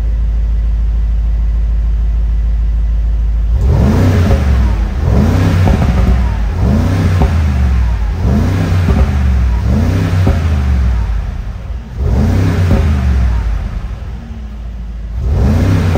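2024 Mercedes-AMG G63's twin-turbo V8 idling, then revved in about seven quick throttle blips, each rising and falling in pitch.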